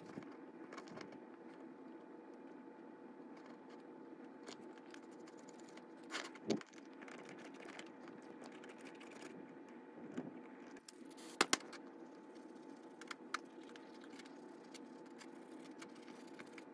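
Faint clicks and light rattles of small metal model-locomotive parts being handled and scrubbed with a cotton swab, over a steady low hum. The sharpest sound is a quick pair of clicks about eleven seconds in.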